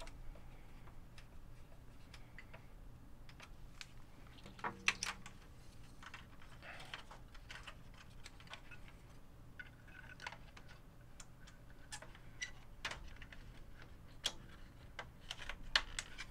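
Scattered small clicks, taps and light rattles of hands working parts inside an open Sony EV-S9000E video recorder's chassis, with a few louder clusters about five seconds in and near the end.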